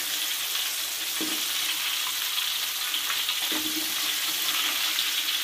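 Tapioca-floured Indian mackerel sizzling in shallow hot oil in a pan, a steady hiss. A spatula is worked under the fish to turn them, giving a few light scrapes against the pan.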